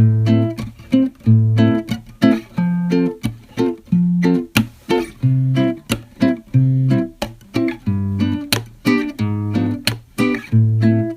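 Background music: an acoustic guitar plucked and strummed in a steady rhythm, with low bass notes recurring.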